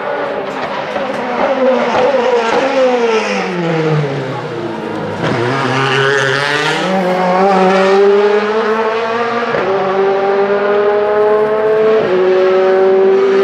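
DTM touring car's 4-litre V8 engine: the engine note falls as the car slows, then climbs as it accelerates away, with sharp drops in pitch at upshifts about nine and a half and twelve seconds in.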